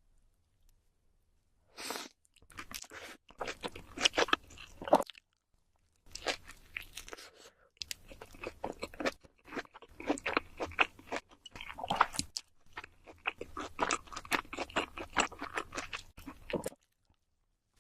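Close-up eating sounds of cheese seafood pizza: chewing and crunching of the crust as dense crackly clicks in runs, starting about two seconds in and stopping shortly before the end.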